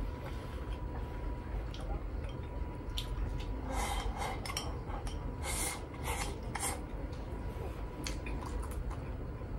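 Eating from a ceramic bowl with chopsticks: a run of wet slurps as food is shovelled from the bowl's rim into the mouth, between about four and seven seconds in, with a few light clicks of chopsticks against the bowl before and after.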